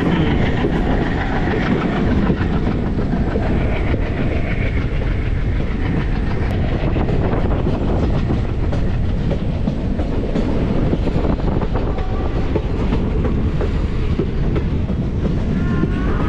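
Indian Railways passenger train's coaches rolling along the track, heard from an open coach door: a steady rumble of wheels on rail with rapid clickety-clack.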